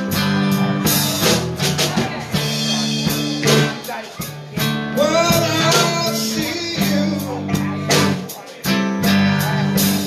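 Live blues band playing: electric guitars over bass and drum kit, with notes bending up and down about five seconds in.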